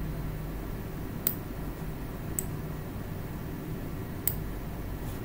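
Three sharp computer mouse clicks, about a second in, a second later and near four seconds, over a steady low hum of room noise.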